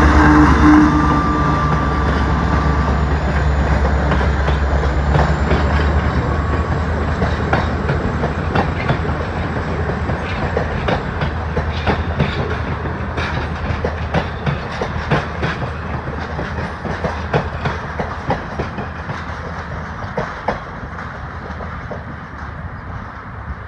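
Diesel locomotive passing close by, its engine a steady low drone for the first several seconds, then the passenger cars rolling past with a rhythmic clickety-clack of wheels over rail joints, fading as the train moves away.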